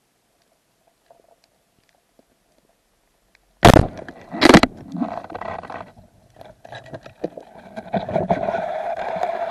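A speargun fired underwater: a loud sharp crack about three and a half seconds in and a second sharp knock under a second later, then irregular scraping and knocking.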